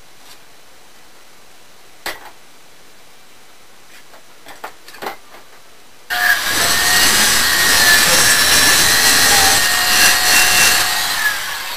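Porter-Cable circular saw switched on about six seconds in, cutting across the end of a wooden canoe paddle blade to square it off, then released and spinning down near the end, its whine falling in pitch. Before it, a few light clicks of handling and pencil marking.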